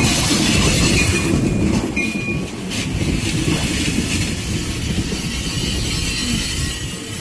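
Amtrak Cascades passenger train rolling slowly past at close range as it arrives and brakes into the station: a heavy rumble of wheels on rail with some clacking, and a couple of short wheel squeals about two seconds in. The sound eases slightly as the cars keep passing.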